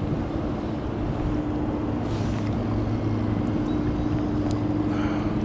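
A boat motor running at a steady pitch: an even, low hum.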